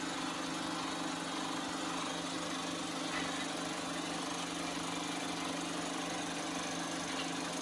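16mm film projector running, a steady mechanical whir and hum with an even hiss, during a stretch of the film without dialogue.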